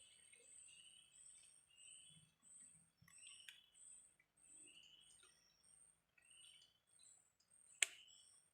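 Faint outdoor chorus of repeated animal chirps: a high, short chirp about twice a second and a lower rising call roughly once a second. One sharp click comes near the end.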